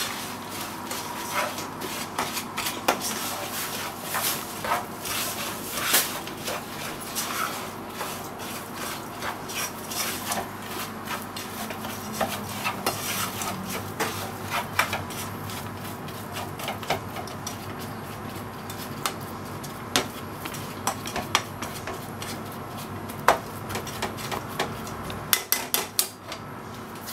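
A spoon scraping and clicking against a pot while crushed digestive biscuits are stirred and folded into melted margarine over the heat, with a few sharper knocks near the end.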